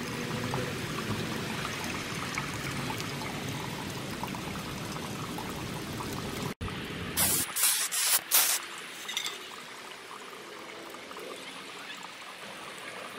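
Clear satin lacquer hissing from an aerosol can onto a cast-iron sewing-machine treadle base: one long steady spray, then a few short bursts a little past the middle.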